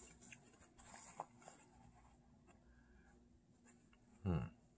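Mostly quiet, with faint rustling and a few small clicks, then a short hum from the eater, falling in pitch, a little past four seconds in.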